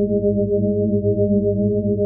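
Star Trek sci-fi sound effect: a steady low electronic hum made of several layered tones, wavering slightly.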